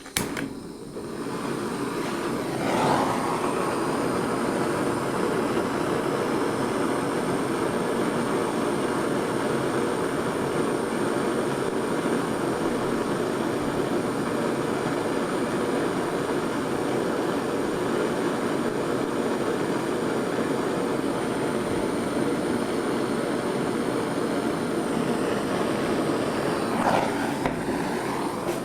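Gas blowtorch flame burning steadily, a continuous rushing hiss. It starts with a click and builds over the first couple of seconds.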